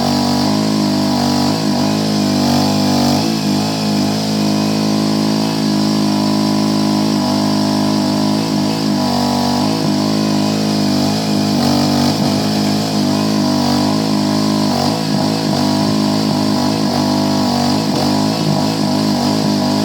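Rippa Mule Trac one-ton mini excavator's gasoline engine running continuously, its pitch wavering slightly up and down as it works.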